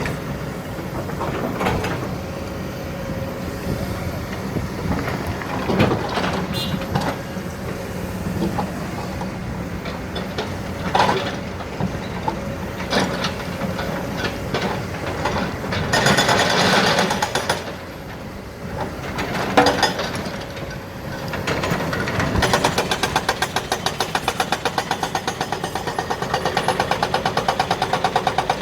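Heavy diesel machinery at a quarry: an excavator's engine running steadily, with scattered metallic knocks and clatters and a longer rattling burst a little past halfway. Near the end the sound turns into a fast, even engine pulse.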